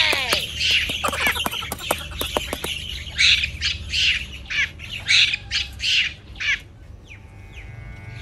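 A bird squawking in a rapid string of short, harsh, raspy calls with sharp clicks among them, thinning out near the end.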